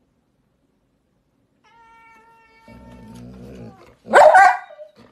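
A dog and a cat vocalizing at each other at close quarters: a faint steady whine, then a low growl, then one short loud cry about four seconds in.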